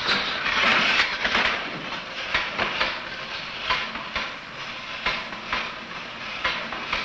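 Rattling, clicking mechanical clatter over a steady hiss on an old film soundtrack, with irregular knocks through it.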